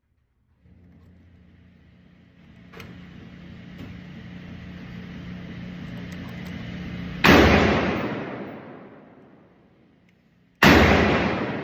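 Two rifle shots, the first about seven seconds in and the second near the end, each a sharp crack that rings out over a couple of seconds. Before the first shot a steady low hum slowly grows louder.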